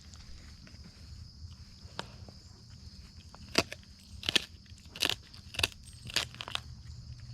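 Wolfdogs chewing on raw deer, with a run of about six sharp, loud crunches in the second half as the meat and bone are bitten through.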